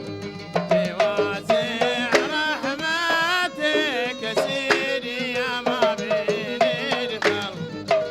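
Bahraini sout music: a violin plays a wavering, ornamented melody over a steady pattern of mirwas hand-drum strokes.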